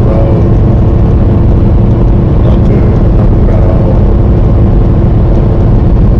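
Semi-truck driving, with a steady low drone of engine and road noise and a constant hum.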